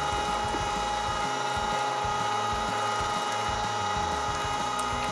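Cabela's Carnivore electric meat grinder running steadily with an even, high-pitched motor whine, grinding pork and beef through a coarse 3/8-inch plate on the first grind.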